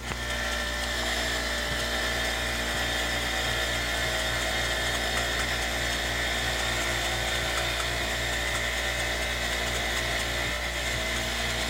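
Electric drill spinning a wire wheel brush, scrubbing a small metal sewing-machine part clean: a steady motor whine with a scratchy rasp from the wire bristles on metal, running without a break.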